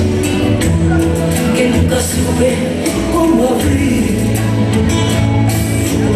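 Dance music with a singing voice over a bass line and steady percussion.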